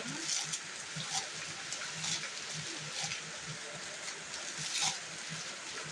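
Plastic packaging rustling and crinkling in several short crackles as an unboxed item is handled, over a steady background hiss.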